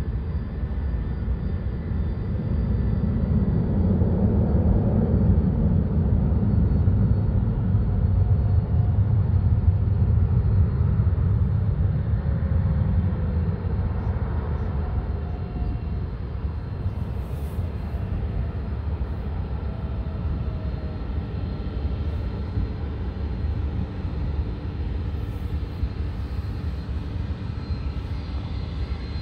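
Airbus A300 freighter's two turbofan engines at taxi power: a steady low rumble with a faint high whine. It swells a few seconds in and eases off over the second half.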